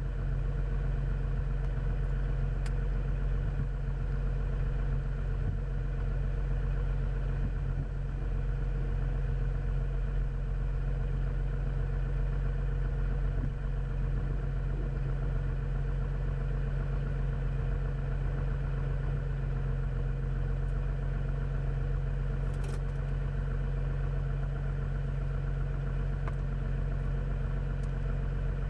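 Cessna 400's turbocharged six-cylinder piston engine idling steadily on the ground, with a faint click about three seconds in and another near the end.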